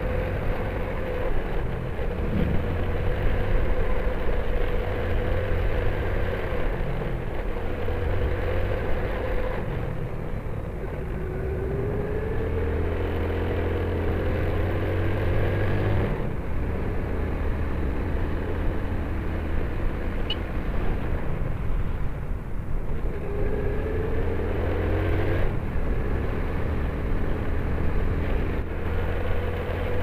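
Motorcycle engine running under way over a steady low rumble. Twice its pitch rises as it accelerates, then drops suddenly at a gear change, about halfway through and again later.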